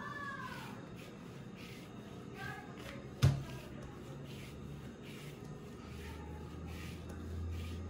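Hands rolling up a strip of bread dough on a plastic tablecloth: soft brushing strokes repeated every half second or so, with one sharp knock about three seconds in.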